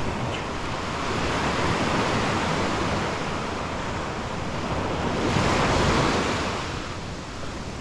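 Ocean surf washing onto the beach, with waves swelling twice, about two seconds in and again around five to six seconds in, and wind buffeting the microphone.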